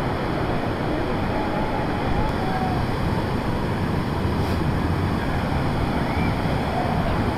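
Steady rush of flowing hot-spring water, an even noise with no break.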